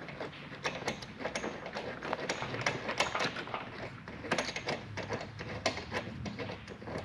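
Irregular metallic clicks and knocks of cargo D-rings and their bolts being loosened, pulled out and handled.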